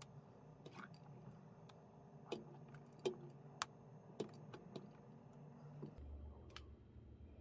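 A few faint clicks and light knocks of a spatula against a bowl as whipped cream is scooped and dropped onto a cake layer. The loudest knock comes about three seconds in.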